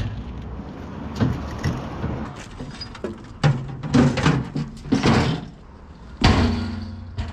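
A series of irregular knocks and thuds, like doors and equipment being handled, with a steady low hum near the end.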